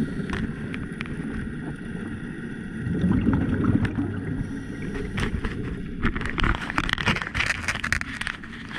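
Scuba diver's breathing heard underwater through the camera housing: low bubbling swells from the regulator that come and go every few seconds, then a stretch of dense crackling, fizzing bubbles about six seconds in.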